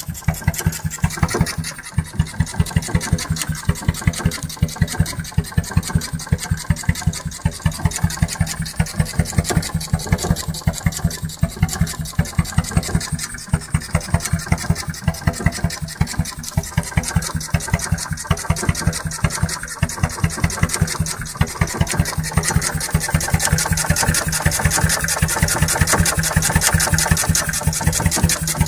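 Lidan hot-bulb crude oil marine engine running steadily under way, a slow, even beat of sharp knocks a few times a second.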